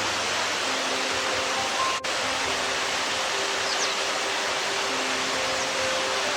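Steady rush of flowing river water, with soft sustained notes of background music over it. There is a short dropout about two seconds in, and a faint high chirp near the middle.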